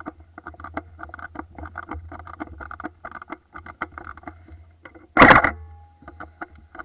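Quick rustling and clicking footsteps through leaf litter and undergrowth, with gear rattling as the walker moves. About five seconds in there is one loud sharp crack, the loudest sound, followed by a brief ringing tone.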